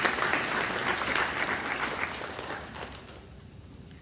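Audience applauding, fading away about three seconds in.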